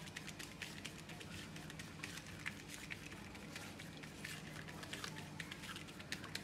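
Faint, irregular crackling and ticking of a banana leaf under the fingers as a ball of rice-flour dough is pressed and spread thin on it.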